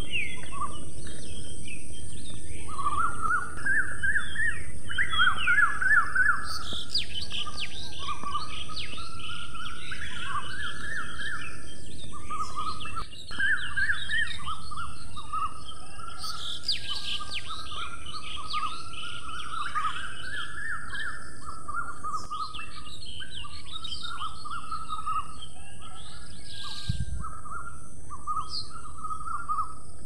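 Birds chirping and calling over one another in a continuous, busy chorus of short, quick notes, with a steady high hiss underneath.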